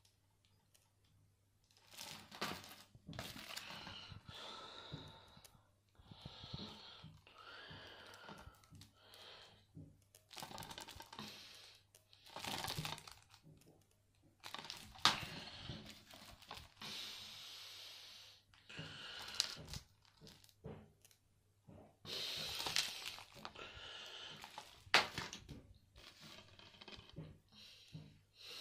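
Plastic disc cases being handled: irregular crinkling and rustling of plastic, in bursts with short pauses, with a few sharp clicks and knocks, two of them loud.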